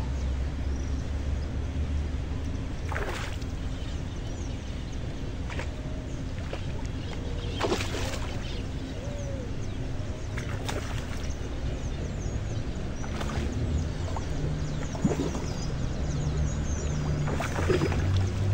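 Outdoor ambience: wind rumbling on the microphone, with small birds chirping and about six short, sharp clicks or knocks spread through.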